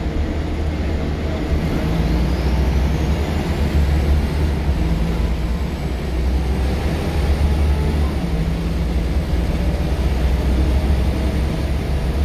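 Scania L94UB single-deck bus's rear-mounted five-cylinder diesel heard from inside the saloon while under way: a steady low engine drone with road noise. A faint high whine rises in pitch about two seconds in and then holds.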